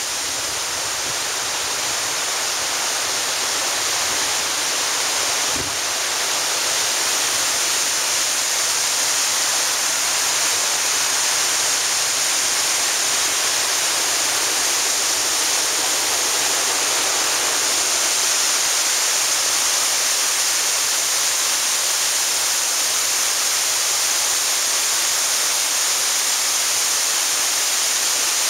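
Steady rush of a waterfall pouring over rock ledges. It grows a little louder about six seconds in, then holds steady.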